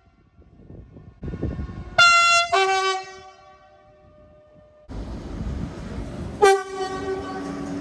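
Spanish train horns: a train approaches and gives two short horn blasts a couple of seconds in, the second on a lower note. Then a sudden change to the loud rumble of a train running past, with one more short horn blast about six and a half seconds in.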